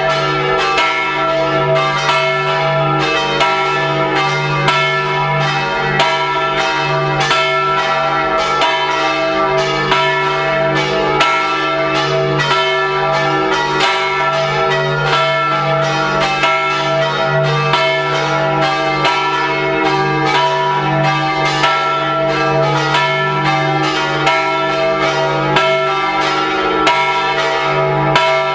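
Full peal of swinging church bells, several bronze bells striking over and over at about two strokes a second, their tones overlapping into continuous ringing: the Sunday call to evening Mass.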